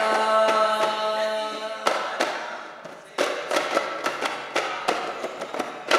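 Daf frame drums beaten together by a Duff Muttu group, with a group of voices holding a sung note over the first two seconds. The drumming dies down about three seconds in, then resumes in quick strokes.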